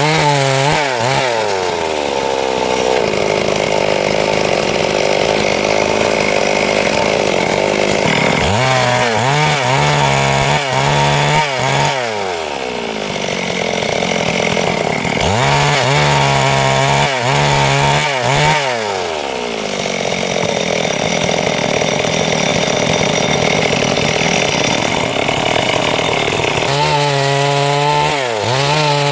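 Stihl MS382 two-stroke chainsaw cutting through wood in several long passes. The engine note bends up and down between cuts and settles into a steadier, denser sound while the chain is in the wood.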